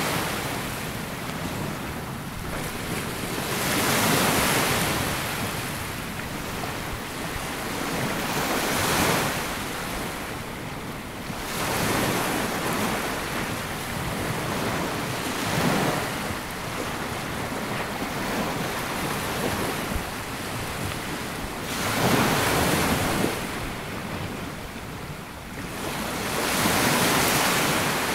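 Small waves breaking and washing up a sandy beach, swelling and fading every few seconds, with some wind on the microphone.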